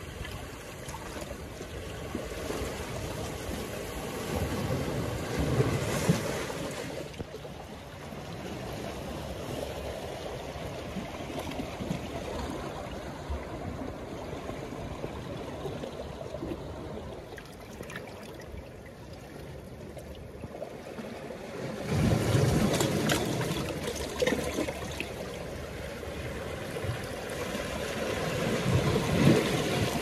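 Small sea waves washing and breaking among shoreline boulders: a steady wash of surf that swells louder from time to time, most strongly in the last third.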